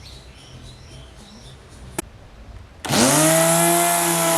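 Corded electric edge trimmer switched on: after a sharp click, its motor spins up with a quickly rising whine about three seconds in and then runs at steady high speed.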